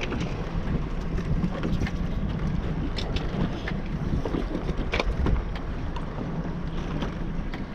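Small boat's motor running steadily under heavy wind buffeting the microphone in rough, choppy water, with a few sharp knocks about three and five seconds in.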